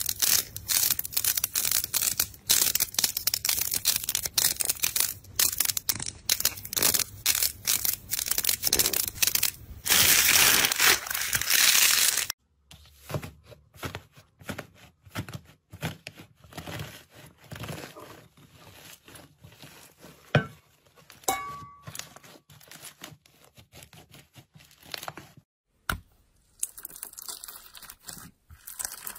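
Hands squeezing and tearing slime in a run of short clips, giving crackling, popping and tearing. It is loud and dense for about the first twelve seconds, then a crusted green iceberg-type slime is pressed and torn with quieter, scattered cracks. Near the end a slime packed with small beads crunches under the fingers.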